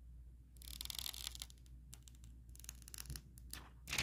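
Clear protective plastic film being peeled off the screen of a Samsung Galaxy S22 Ultra: a crackling, tearing rustle starting about half a second in and lasting under a second, then scattered lighter crackles and a sharper tick near the end.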